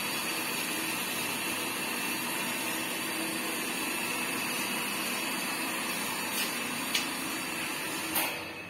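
Electric water pressure pump motor running steadily, then cutting out shortly before the end; just afterwards the system is called automatic at 40, which fits the pressure switch shutting the pump off at its 40 psi cut-out. A few faint clicks sound near the end.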